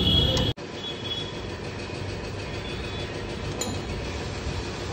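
Steady low background rumble, louder and with a high steady whine for the first half-second. It breaks off in a brief drop-out at the edit, then carries on more quietly.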